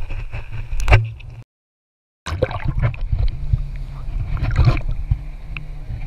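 Knocks and rumbling as a waterproof action camera tumbles, with a loud knock about a second in, then a second of dead silence. After that, water splashes and slaps against the camera housing as it bobs at the lake surface.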